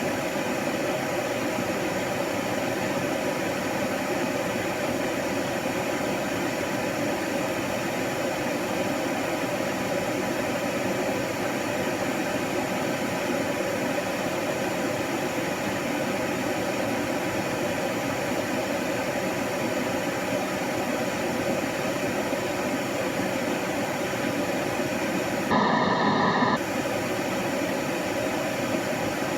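Steady white-noise hiss at an even level, with a short, slightly louder and duller stretch lasting about a second near the end.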